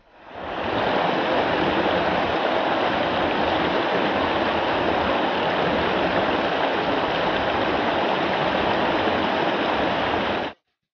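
Small stream cascading over rocks into a pool, close to the microphone: a steady sound of falling water that comes in over the first half second and cuts off suddenly near the end.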